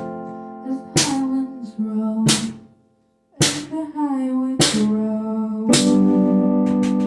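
A rock band's song closing out: chords struck together with sharp drum hits about once a second, a brief stop about three seconds in, then a long held chord.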